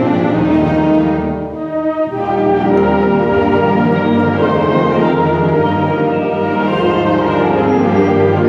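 Honor concert band of woodwinds and brass playing a held, full-ensemble passage; the sound thins briefly about one and a half seconds in, then the whole band comes back in.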